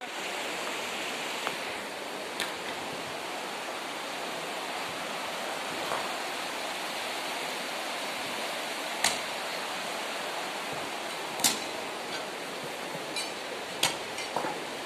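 River water rushing steadily over stones and rubble, a constant even hiss. A few sharp clicks or knocks stand out, the loudest about nine and eleven and a half seconds in.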